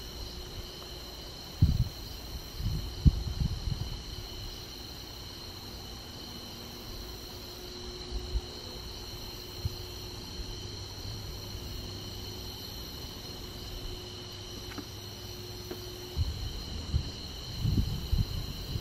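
Crickets calling in a steady, continuous chorus. Low rumbling bumps sound on the microphone a couple of seconds in and again near the end.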